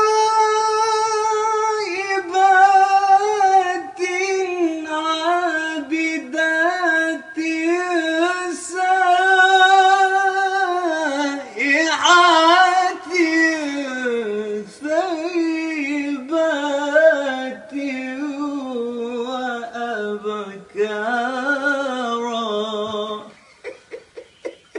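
A young man's solo voice chanting Quranic recitation in a melodic style, long held notes with quick ornaments. It starts high, in the upper 'jawab' register, and works step by step down to lower notes, stopping about a second and a half before the end.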